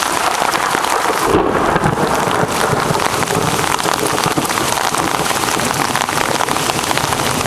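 Heavy rain pattering on an umbrella, with a low thunder rumble coming in about a second in and carrying on under the rain.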